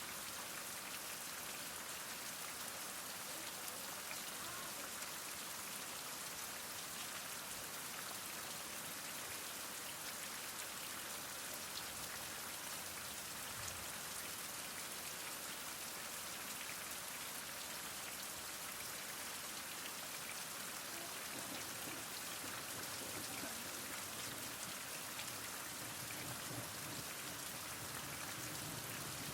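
Heavy rain falling steadily: a dense, even hiss of drops hitting surfaces, with many small drop ticks.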